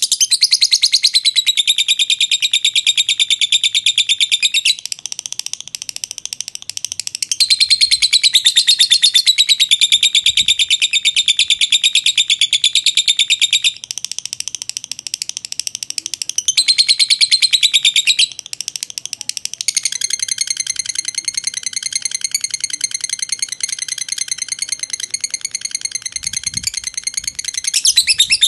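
Fischer's lovebird singing a long, unbroken 'ngekek': a fast, shrill chattering trill that runs on without pause, changing pitch and pattern every few seconds.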